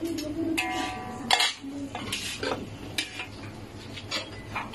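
Metal slotted spatula clinking and scraping against a metal wok while stirring, with a ringing metal clink about half a second in and a sharp knock just over a second in.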